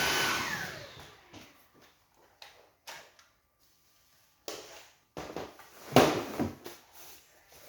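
Sauber Technic stick vacuum's motor switched off and spinning down over about a second, its whine falling away. Then a series of short plastic clicks and knocks, the loudest about six seconds in, as the vacuum's parts are handled.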